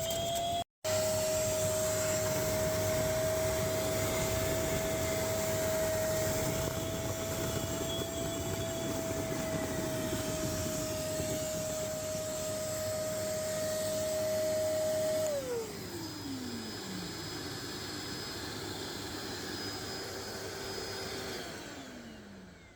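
Parkside wet/dry vacuum motor running with a steady high whine. About 15 s in it is switched off and its pitch falls away as it winds down. A second, lower motor whine keeps running and winds down the same way near the end.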